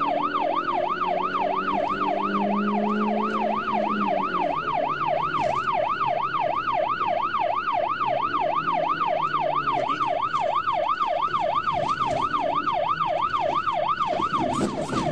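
Police siren in its fast yelp mode, the pitch sweeping up and down rapidly and evenly, about three to four times a second, without a break.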